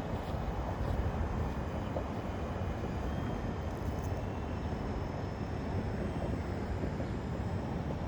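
Mini RC helicopter flying, its small electric motors giving a faint high whine of several thin tones that drift slightly in pitch, over a steady low rumble.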